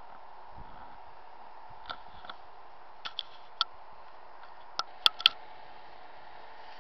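A string of sharp clicks and ticks, irregularly spaced, over a steady hum, the loudest two close together about five seconds in.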